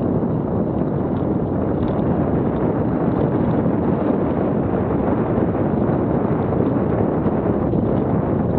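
Mountain bike riding down a dirt trail, heard through an action camera's microphone: a steady rush of wind on the mic mixed with tyre noise on dirt and light rattles from the bike.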